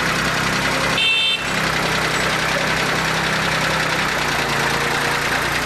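International farm tractor engine running steadily, with a brief dip about a second in.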